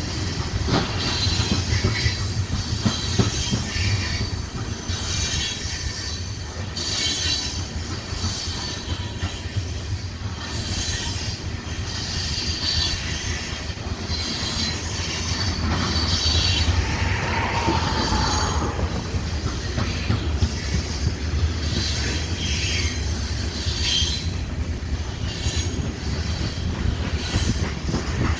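Freight train cars rolling past on the track, a steady low rumble with clanking from wheels and couplers. High-pitched wheel squeal comes and goes throughout.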